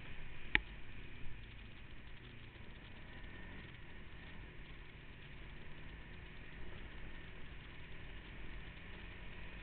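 ATV engine running steadily at low revs, with a sharp knock about half a second in.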